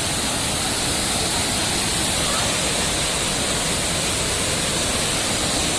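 Waterfall rushing, a steady, unbroken noise of falling water.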